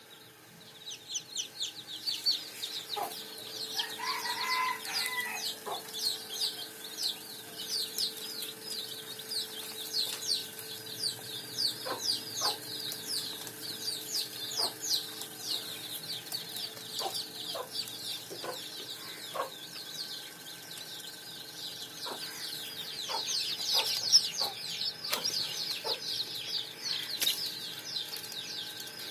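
A brood of desi chicken chicks peeping continuously: many rapid, high-pitched falling peeps overlapping, with occasional short lower calls mixed in and a brief lower call about four seconds in.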